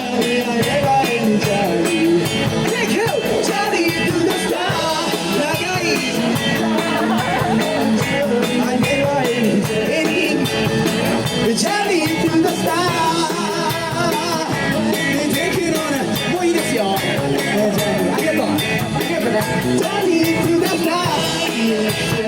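Live rock band playing a song, with a singing voice over guitar and a steady drum beat.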